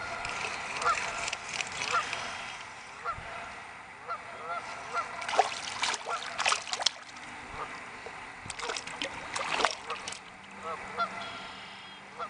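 A hooked crappie splashing and thrashing at the water's surface as it is reeled in beside a kayak, in several sharp bursts. Short honking bird calls repeat in the background.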